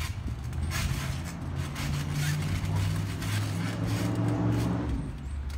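A low engine hum, like a passing vehicle, that builds about a second and a half in and fades near the end, over scattered thumps of people jumping on a trampoline.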